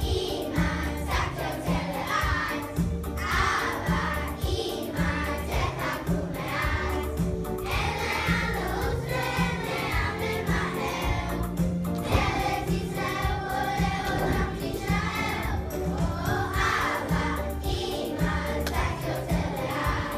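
A group of schoolchildren singing a song together over a musical accompaniment with a steady beat.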